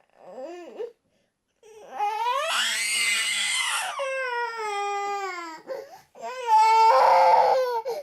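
A small child crying. A brief whimper comes first, then a long wail that rises and holds before sliding down in pitch. Near the end comes a last cry, the loudest and roughest of them.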